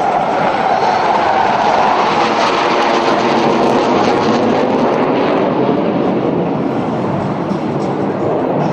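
Loud jet roar of a General Dynamics F-111's twin TF30 afterburning turbofans as it passes low and climbs away. A tone inside the roar falls in pitch over the first few seconds.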